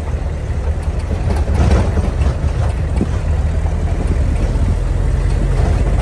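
A vehicle's engine running with a steady low hum while driving over a rough gravel road, with scattered short knocks and rattles from the bumps.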